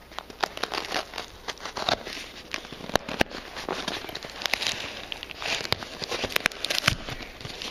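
Packaging being unwrapped by hand: irregular crinkling and crackling of wrapping, with sharp clicks and taps as the box is handled.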